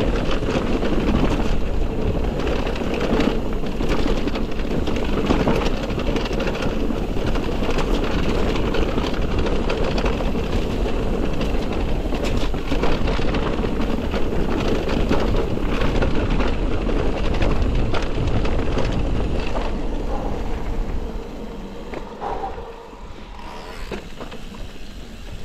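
Electric mountain bike riding over a rough trail: continuous tyre noise and rattling knocks from the bike, with wind on the microphone. The noise drops off near the end.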